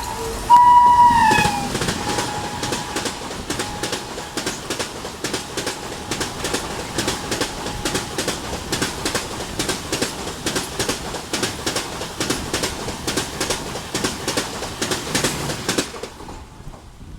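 Express train speeding past: the electric locomotive's horn sounds about half a second in and falls in pitch as it goes by. Then comes a long, steady clickety-clack of the LHB coaches' wheels over the rail joints, which dies away about a second before the end.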